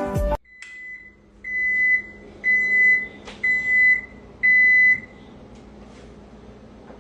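An electronic appliance beeper sounding five evenly spaced high beeps, about one a second, over a steady low hum, with a single click near the middle.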